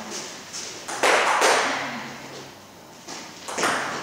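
Table tennis rally: the celluloid ball clicking off rubber bats and the table in a string of quick, sharp hits, the loudest just after a second in, with the hall echoing after them.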